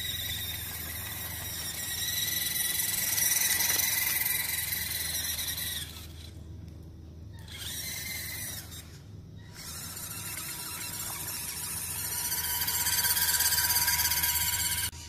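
Electric drive of a WPL B-24 Gaz-66 1/16 RC truck, a brushed motor and gearbox, whining high-pitched as the truck drives. The whine swells and fades with the throttle, and cuts out twice in the middle where the truck stops briefly.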